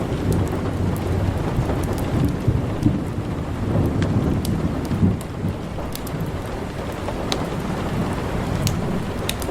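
Steady rain with a low, continuous rumble of thunder underneath. Sharp, scattered crackles and pops of a wood fire run through it.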